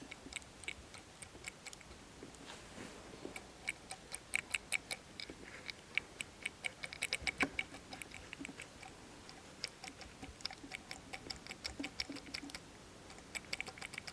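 Faint, quick runs of light clicks and ticks as a turbocharger's shaft and wheel are turned by hand. The clicking comes from play in the shaft, the same wear the owner blames for oil getting past the turbo's seal into the exhaust.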